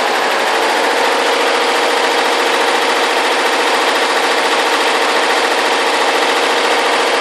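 Multi-head computerized embroidery machine stitching at high speed: a fast, steady mechanical clatter of the needle heads with a steady hum, unbroken throughout.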